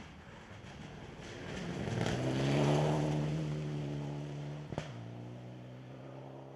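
Rally car engine going past at speed, its steady note swelling to a peak a few seconds in and then fading away. A single sharp crack comes about two thirds of the way through, and the engine note drops slightly after it.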